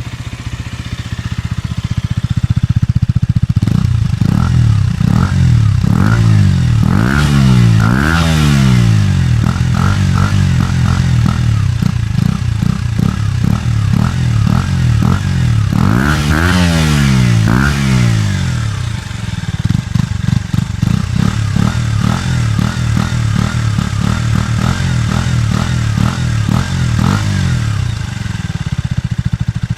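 KTM Duke 125's single-cylinder four-stroke engine through its stock exhaust, idling and then revved in many quick throttle blips, with two longer revs that rise and fall about a quarter of the way in and just past halfway. It settles back to idle near the end.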